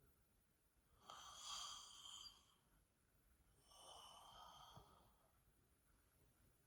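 A dozing woman's slow, soft breathing: two breathy breaths, the first about a second in and the louder of the two, the second about a second later.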